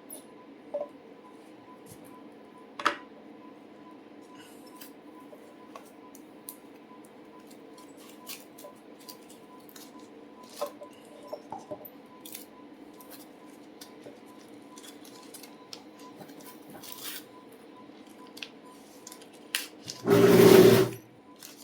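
Unboxing handling noise from a watch box and its packaging: scattered small clicks and rustles, with one loud rustling burst about a second long near the end, over a steady faint hum.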